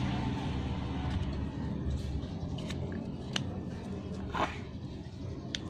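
A few small, sharp plastic clicks and taps as a Honda TMX 125 Alpha's disassembled handlebar starter-switch housing is handled and worked by hand, over a steady low background rumble.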